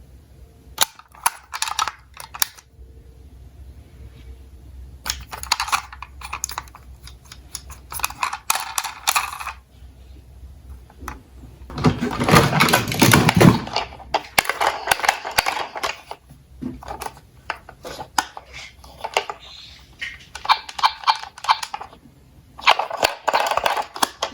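Diecast toy cars rattling and clicking as they roll down a toy slope track and knock into one another, in repeated bursts. About twelve seconds in there is a longer, louder clatter.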